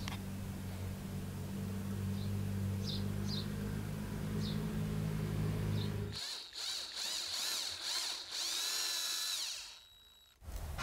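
A steady low hum for about six seconds, then an electric drill with a small twist bit boring a hole through a thin metal spoon blade cut from a beer can: a high whine that wavers in pitch for about three and a half seconds, then stops.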